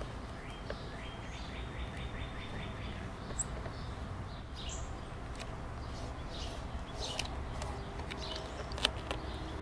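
Outdoor background with a steady low rumble and a bird chirping and trilling faintly. A few light crackles come from vinyl tint film being handled and pressed onto the taillight.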